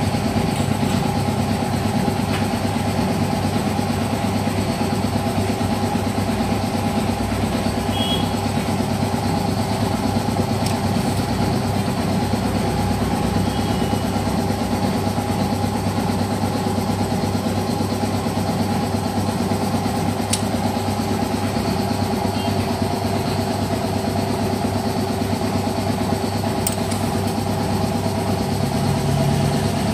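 An engine idling steadily, with a few faint ticks along the way.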